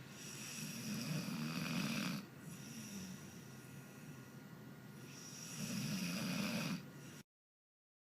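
American pit bull terrier snoring in its sleep: two long snores about four seconds apart, each a low buzz with a breathy hiss over it. The sound cuts out completely for the last second.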